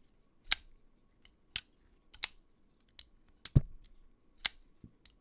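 SMKE clone of a Koenig Arius flipper knife being flipped open and snapped shut over and over, giving a sharp metallic click about once a second. The clicks have a thin "tink" to them, which the owner hears as the mark of a clone rather than the solid sound of the genuine knife.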